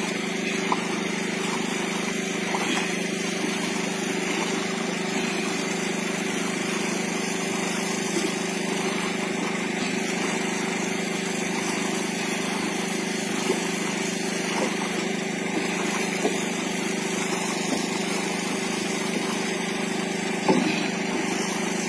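Fishing boat's engine running steadily at an even pitch, a constant hum with wind and water noise around it.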